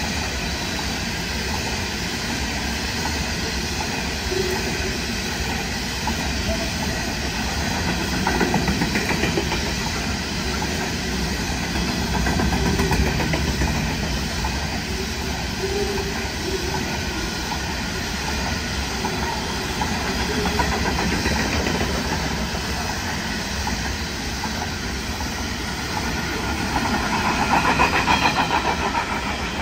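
Coal hopper wagons of a long freight train rolling past on the track, a steady noise of steel wheels on rails that swells and fades every few seconds and is loudest near the end.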